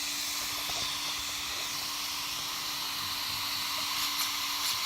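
A steady hiss with a faint steady hum underneath, and a few light clicks near the end.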